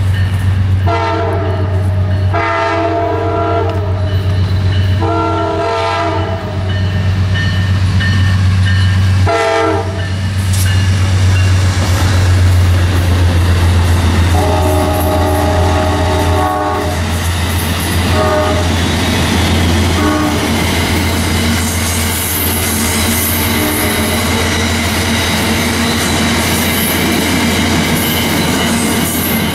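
Amtrak passenger train passing close by: the locomotive horn sounds several blasts in the first ten seconds, then a long, lower-pitched blast about halfway through and a couple of short ones. Under a steady low rumble, the passenger cars roll past with wheel clatter.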